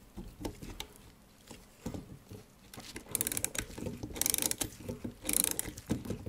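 Brass clock movement's open mainspring being wound with a multi-prong key: the click snaps over the ratchet wheel in short bursts of rapid clicking, about one burst a second from midway on, after a few light handling knocks.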